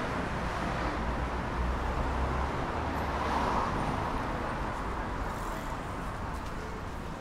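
Street traffic on a city avenue: the steady noise of passing cars, with one car going by closer about three seconds in.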